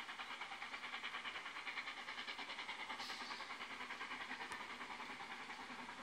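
Steam locomotive 99 234, a Harz narrow-gauge 2-10-2 tank engine, working hard out of sight, its exhaust beats coming in a fast, even rhythm of about five a second.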